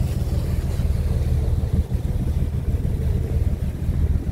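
Steady low rumble on a fishing boat at sea: wind buffeting the microphone over a faint, even engine hum.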